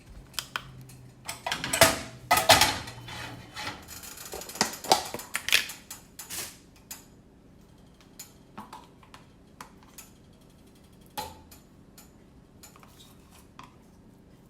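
Kitchen clatter of dishes and utensils clinking and knocking. It is busiest for the first several seconds, then thins to scattered single clicks.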